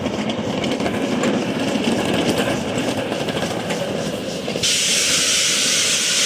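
Ride-on miniature steam train rolling along the track, its wheels clicking over the rail joints. About four and a half seconds in, a loud steady hiss cuts in suddenly.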